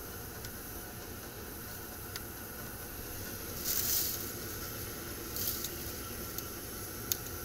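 Steady running noise of a gas pack heating unit firing, with a short hiss about halfway through, a smaller one soon after, and a few faint clicks.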